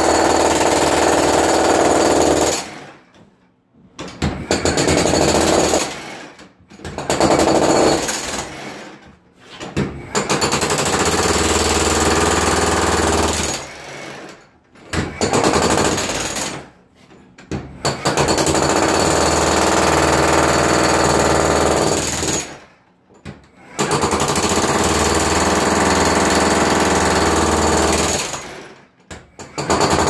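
Milwaukee battery-powered jackhammer breaking up a concrete floor, hammering loudly in runs of a few seconds to several seconds, with about seven brief stops between runs.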